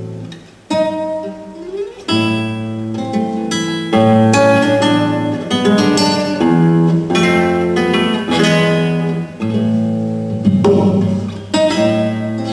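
Acoustic guitar music, plucked notes and strummed chords, with a brief pause less than a second in.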